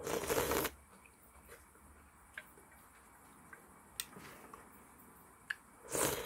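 Ramen noodles being slurped: two short, loud slurps, one at the start and one near the end, with a few faint light clicks between them.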